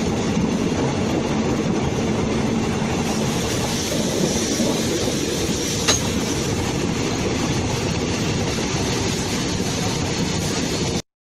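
Railway car wheels running on the rail, heard from close under the car beside the wheelset: a steady rumble and rattle, with one sharp click about six seconds in. It cuts off suddenly near the end.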